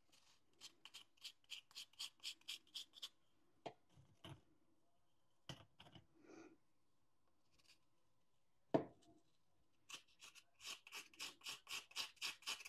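Faint, quick scraping of a butter knife across Oreo cookie halves as the cream filling is scraped off, in runs of about four or five strokes a second, with a few light taps between them and one louder knock about nine seconds in.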